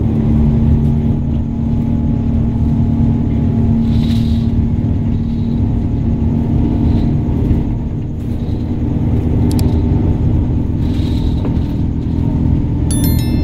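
A car driving along, heard from the moving car: a steady rumble of engine and road noise with a low engine hum. Near the end a short, high electronic chime sounds.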